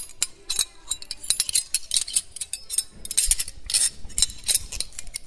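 Metal cutlery clattering: many quick, sharp clinks in an irregular run, thickest in the second half.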